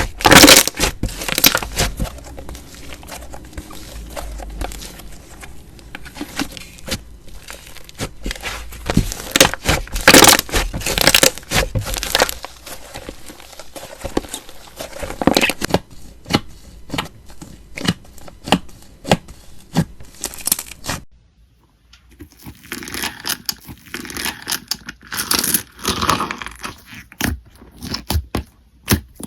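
Slime being squeezed and worked by hand, giving dense crackling, crunching and tearing sounds. It breaks off about two-thirds of the way through, and after a short gap a second slime clip carries on crackling.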